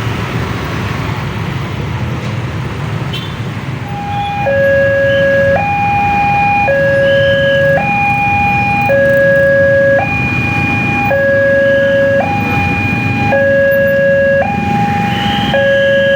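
Kyosan railway level-crossing warning alarm starting about four seconds in. It alternates between a high and a low electronic tone, each held about a second, and sounds as the crossing closes for an approaching train. Road traffic noise runs underneath.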